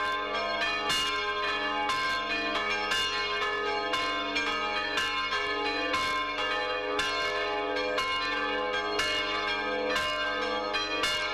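Several church bells rung together in a continuous, uneven peal, strike after strike every second or so, their tones ringing on over one another.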